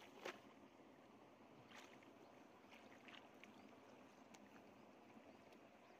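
Faint splashing and sloshing of shallow muddy paddy water stirred by someone wading and groping with their hands, with a few small splashes near the start, about two seconds in and about three seconds in, over a faint steady hiss.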